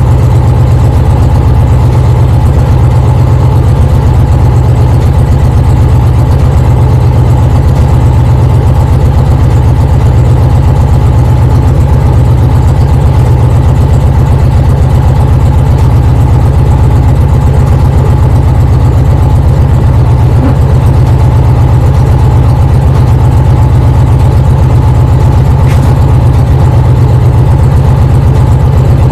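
Indian Challenger's PowerPlus V-twin engine idling steadily, a loud, even low rumble.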